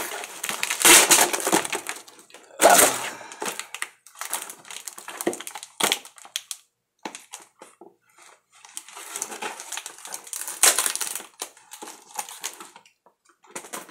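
Cardboard and packing tape crinkling and crackling as a taped-up cardboard box is handled and pulled at, in irregular bursts, loudest about one and three seconds in, with a lull around the middle.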